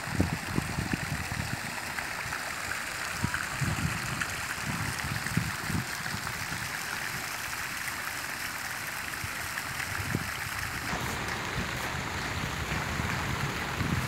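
Small jet fountains in an ornamental pond splashing: a steady rush of falling water, with irregular low rumbles underneath. The sound shifts in tone about eleven seconds in.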